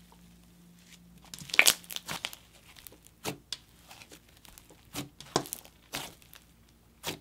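Jelly fizz slime, a hybrid of jelly slime and snow fizz slime, being stretched and pressed by hand, giving crackles and small pops. A dense run of crackling comes about a second and a half in, then single pops about once a second.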